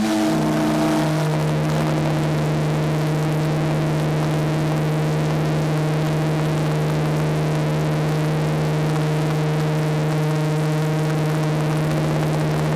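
The SS Normandie's steam whistle sounding one long, steady, low-pitched blast with a rich chord of tones and a hiss of steam beneath.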